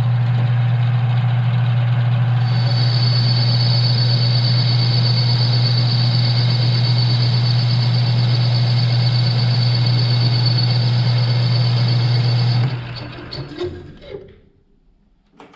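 Smithy CB-1220XL combination lathe-mill running on high speed with a loud steady motor hum, taking a turning pass on a pipe. A steady high whine joins about two seconds in as the tool cuts. About twelve seconds in the motor is switched off and the machine spins down to a stop.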